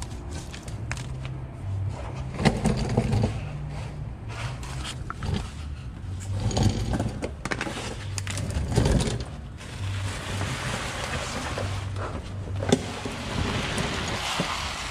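Hand tools working on metal as the oil-change fittings are tightened back down: scattered light clicks and a few louder knocks, over a steady low hum.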